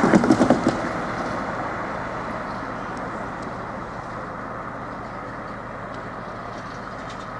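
Road traffic: a loud vehicle passing close in the first second, then a steady road-noise hiss that slowly fades.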